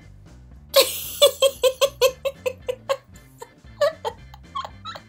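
A woman laughing: a sharp breathy burst about a second in, then a quick run of short giggles for about two seconds, then scattered shorter laughs.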